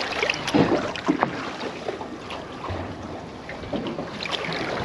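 Sea water splashing and lapping against the side of a boat as a large snapper is slipped back into the water, with a few short splashes in the first second or so. Wind buffets the microphone throughout.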